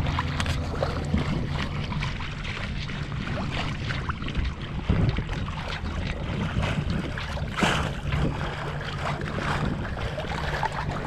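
Water rushing and splashing along a sailboat's hull as it sails through light chop, with occasional louder splashes and wind buffeting the microphone.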